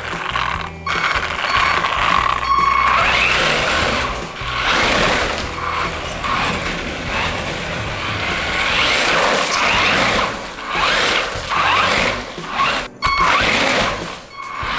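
Electric RC trucks' motors and gears whining as they repeatedly speed up and slow down across a hardwood floor, with background music.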